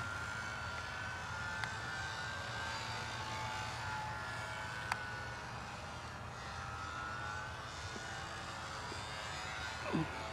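Electric motors and propellers of radio-controlled combat model planes whining, their pitch drifting slowly up and down as the planes turn. A sharp click comes about five seconds in, and a quick falling sweep comes near the end.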